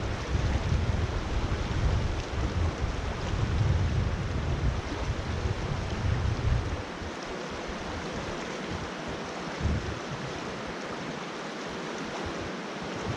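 Steady rush of river water, with wind buffeting the microphone for roughly the first half before it eases off.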